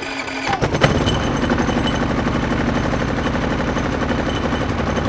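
Powerhorse 3500-watt inverter generator's electric starter cranking, then its single-cylinder engine catching about a second in and running at a steady, fast putter on full choke at its first start.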